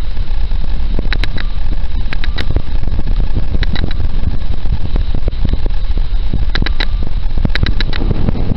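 Loud, steady low rumble of wind buffeting the microphone, with many short knocks and a few brief high squeaks.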